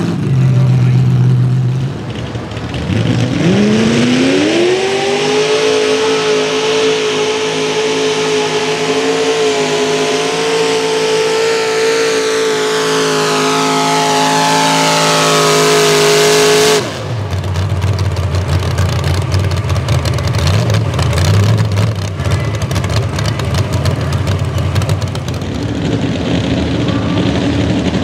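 Mini rod pulling tractor's engine running at idle, then revving hard about three seconds in and holding high, steady revs under full throttle for about thirteen seconds on the pull, cut off abruptly. After that the running goes lower and rougher, with sharp crackling, and near the end another engine starts to rev up.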